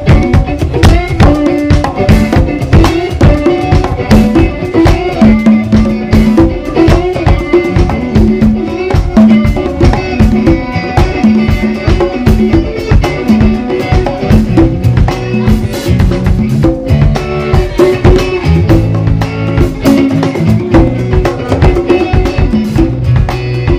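A live band playing: a conga struck by hand, an electric guitar and an electric bass, with a steady rhythm and a moving bass line.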